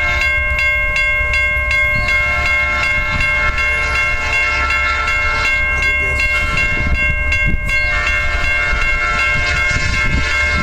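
Grade crossing bell ringing rapidly, about three strokes a second, over the steady low rumble of a passing freight train led by an EMD SD40-2 diesel locomotive.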